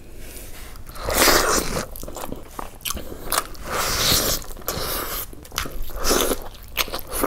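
A person biting and chewing chicken curry and basmati rice eaten by hand: a series of separate bites and chews, the loudest about a second in.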